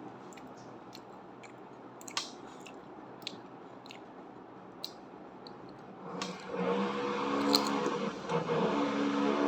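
Crunchy snack being chewed in the mouth, with sparse faint crackles. About six seconds in, a louder steady hum joins it and keeps going.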